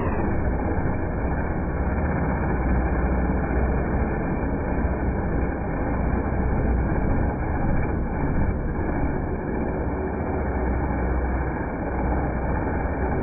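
DeWalt random orbital sander running steadily as it is worked along pine slats, its motor and pad making an even drone. It sounds muffled, with the high end cut away.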